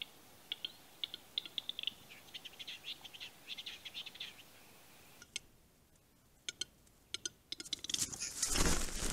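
Male western capercaillie singing its lek display: dry clicks that speed up into a rapid scratchy whetting phrase. Later come scattered sharp clicks and a loud rushing burst of noise about eight seconds in.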